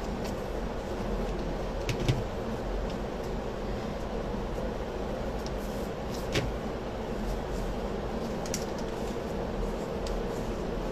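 Steady room hum with a low constant tone, broken by a few soft clicks and taps: a pair about two seconds in, one after six seconds and a fainter one later.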